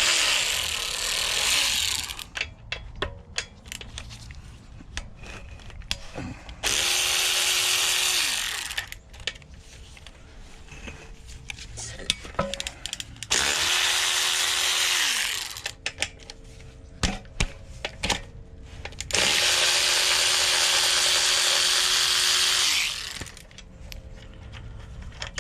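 A cordless power driver spinning out engine case bolts in four runs of a few seconds each, its motor winding up and down at each start and stop, with small clicks of bolts and parts being handled in between.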